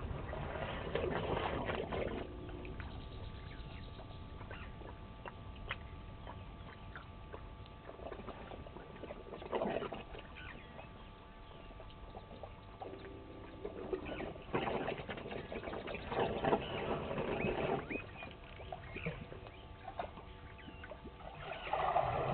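African elephant bull sucking water from a shallow muddy puddle with its trunk, in several irregular slurping bursts, then squirting it into its mouth near the end.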